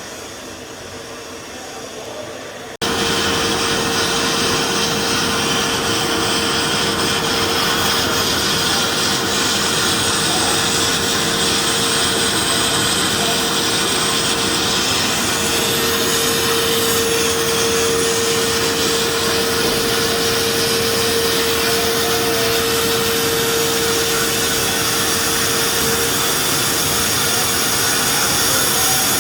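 CNC automatic sandblasting machine running: a quieter steady air hiss that switches abruptly, about three seconds in, to a loud, steady blasting hiss with a constant hum tone under it.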